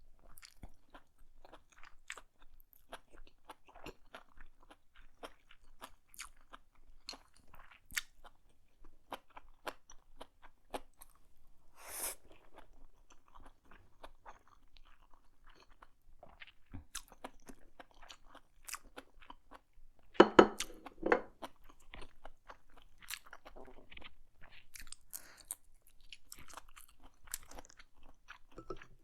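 A person chewing a big mouthful of black bean noodles and enoki mushrooms close to the microphone: a steady run of small wet clicks and smacks, with a sharper burst about twelve seconds in and a louder short burst about two-thirds of the way through.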